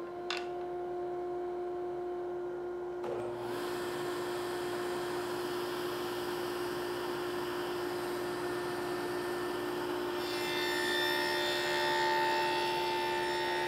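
Table saw running at speed with a steady motor hum while its blade cuts a groove along the edge of a hardwood board pushed through with a push block. The cutting noise comes in about three seconds in and grows louder near the end.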